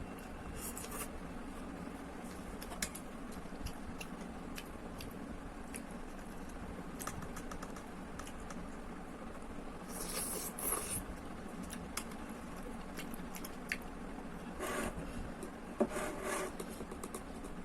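Close-up eating of instant noodles: small clicks of utensils on a bowl and chewing, with a few short noisy slurps, over a steady low hum.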